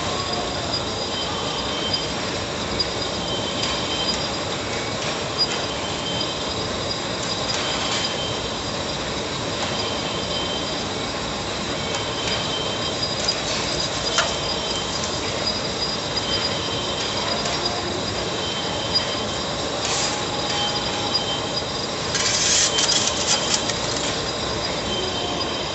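Heavy lathe turning a large steel workpiece: a steady machining noise with a high metallic whine from the cut that comes and goes, and a few sharp clicks. Near the end a louder burst of metallic clattering.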